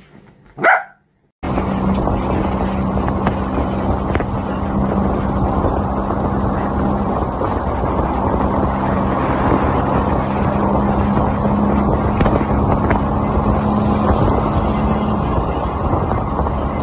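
A dog gives one short, sharp yelp about half a second in. After a brief gap, a motorbike runs steadily at riding speed, with a steady engine hum under heavy wind rush on the microphone.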